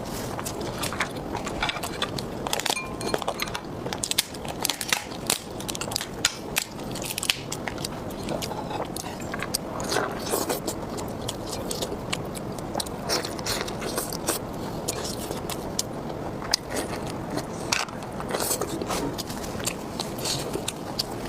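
Close-miked eating: chewing and biting with many irregular sharp, crunchy clicks over wet mouth sounds.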